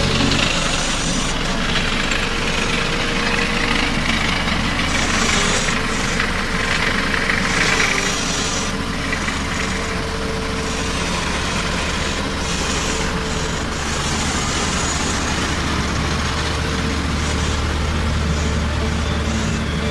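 Diesel engine of a Foton FS818 single-drum road roller running steadily as the machine drives over and compacts the soil.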